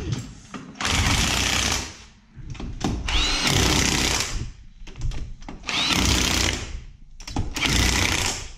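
Cordless impact wrench running in four short bursts on a car wheel's lug nuts, with pauses between bursts as it moves from nut to nut.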